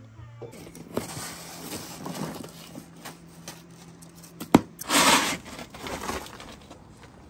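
Loose snow crunching and scraping as it is scooped with a spoon and pushed with a snow shovel. A sharp knock about four and a half seconds in is followed by the loudest scrape.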